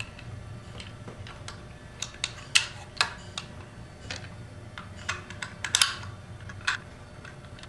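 Irregular small clicks and taps of #8 bolts, nuts and washers being handled and fitted to bolt a fishfinder base onto a RAM mount.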